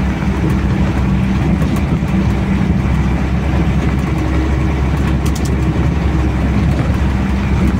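Diesel truck engine pulling steadily up a muddy dirt slope, heard from inside the cab. A few brief clicks about five seconds in.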